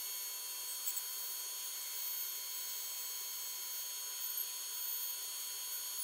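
Band saw cutting through a block of yew wood: a steady hiss with several fixed high whining tones over it.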